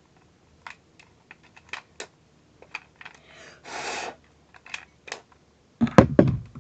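Plastic clicks and rattles from a battery-operated Westcott iPoint Evolution pencil sharpener being handled and shaken, with a short burst of noise about halfway through and louder knocks near the end. The owner suspects its batteries are loose or dead.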